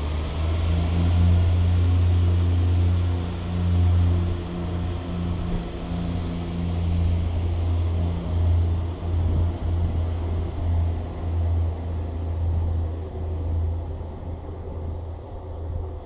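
Diesel multiple unit's engine idling: a steady low drone with a hum in it, easing off a little over the last few seconds.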